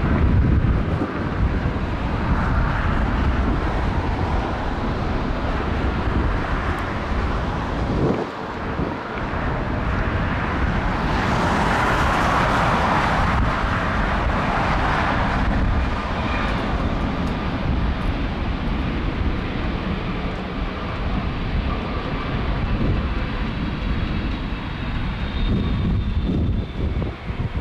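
Jet airliner's engines passing, a broad rush that swells about eleven seconds in and eases off again after a few seconds, over a steady low rumble of strong wind on the microphone.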